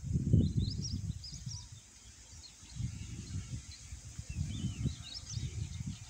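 Wind gusting against the phone's microphone, giving an uneven low rumble, loudest in the first second and a half. Small birds chirp in short high twittering phrases: about half a second in and again about two-thirds of the way through.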